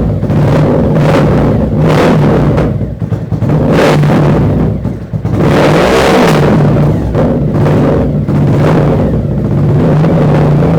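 Fuel-injected Suzuki SV1000 V-twin engine running loud, with repeated blips of the throttle.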